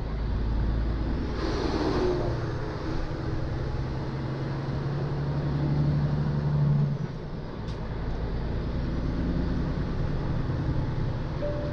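MAN truck's diesel engine running while driving, heard inside the cab; its note climbs steadily for a few seconds under power and then drops away about seven seconds in. A brief whoosh about two seconds in as an oncoming bus passes.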